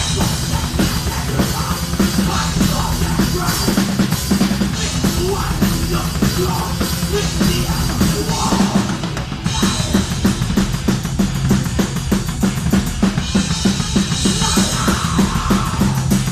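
A rock band playing live, loud and dense, with fast, driving drumming on kick drum, snare and cymbals. The drumming breaks briefly a little past halfway, then picks up again just as fast.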